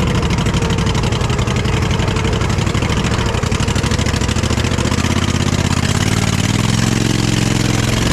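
The engine of an off-road mud-riding lawnmower runs hard as it pushes through mud, loud and continuous. From about six and a half seconds in, a steady pitched drone stands out.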